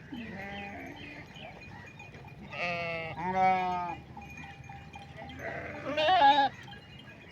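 Goats and sheep bleating: three quavering calls, two back to back about two and a half seconds in and a louder one about six seconds in.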